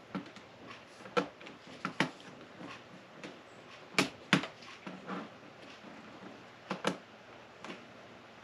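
Lego Technic plastic pieces clicking as they are handled and pressed together: irregular sharp clicks and snaps, the loudest pair about four seconds in.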